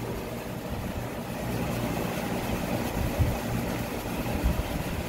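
A vehicle engine idling with a steady low rumble, with a couple of soft knocks about three and four and a half seconds in.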